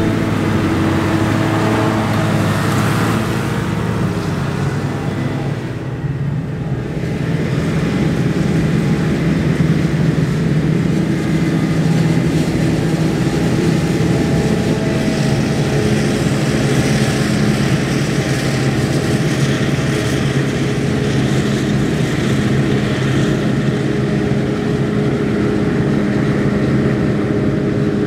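Claas Jaguar 840 forage harvester chopping maize: a loud, steady engine drone under load with the noise of the header and chopper, dipping briefly about six seconds in.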